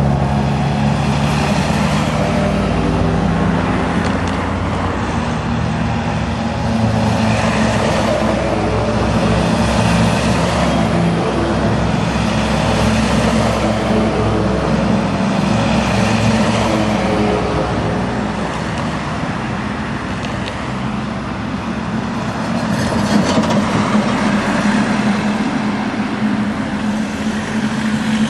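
Military trucks driving past in a column on a road: a steady engine drone with tyre and road noise that swells as each vehicle goes by, dipping for a moment and building again near the end.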